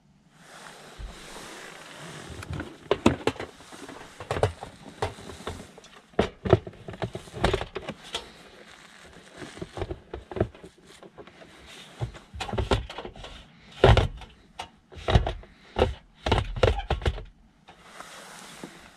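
A portable gas camping stove being handled and stowed: a run of irregular knocks, clacks and scrapes of its metal case against plastic, over rustling, with the sharpest knocks about two thirds of the way in.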